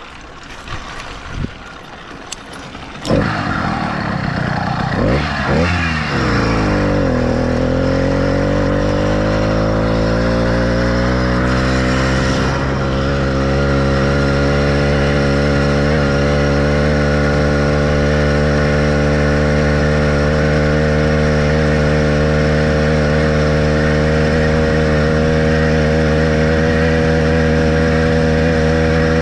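Small motorized-bicycle engine starting up about three seconds in after a few clicks and knocks, revving up and down a few times, then settling into a steady, even run.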